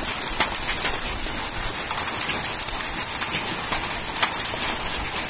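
Rain mixed with hail falling on a garden, a steady hiss dotted with many small sharp ticks of hailstones striking; the stones are reckoned at up to about 20 mm.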